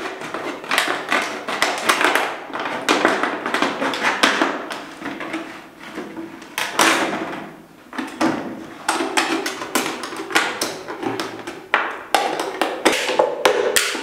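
Box cutter slicing a square opening in a thin plastic water bottle: a dense run of crackles and sharp clicks as the blade punctures the plastic and the bottle wall flexes, with a couple of brief lulls.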